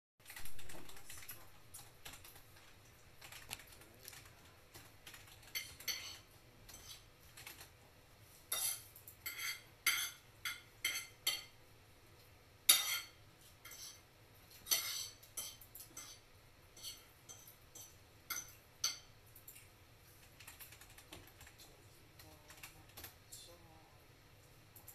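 Irregular light clicks and taps, a few sharper clacks clustered around the middle, over a faint low hum.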